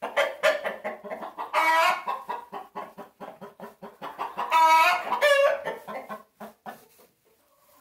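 Flock of hens and a rooster calling: a rapid run of short clucks broken by loud, drawn-out calls about one and a half and four and a half seconds in, dying away near the end. The keeper guesses such outbursts may warn the flock of a predator.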